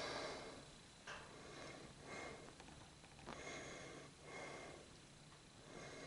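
Faint, repeated soft breaths close to the microphone, rising and falling roughly once a second.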